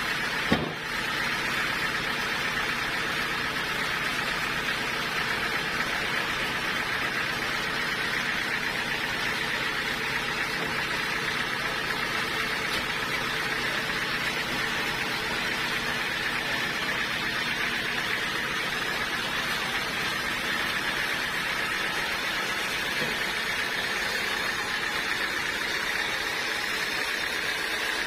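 Sawmill machinery running steadily with an even engine hum and a hissing band. A single short knock sounds about half a second in.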